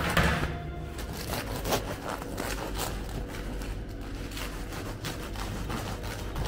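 Handling sounds: a scrape about half a second in, as the plastic cutting board carrying the baked focaccia slides on the stainless steel worktop, then faint scattered ticks and crackles.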